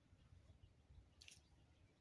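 Near silence: a faint low outdoor rumble, with one brief, faint high-pitched sound a little after a second in.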